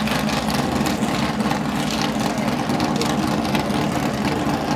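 Car engine idling steadily, a low, even hum with no revving.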